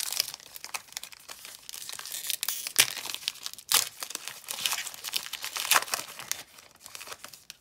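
A foil baseball-card pack (2019 Diamond Kings) being torn open and its wrapper crinkled as the cards are slid out, in a run of crackles with a few louder snaps, settling down near the end.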